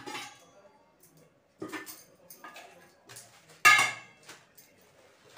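Steel kitchen containers and lids being handled: about half a dozen separate clinks and clatters, the loudest a ringing metallic clang about three and a half seconds in.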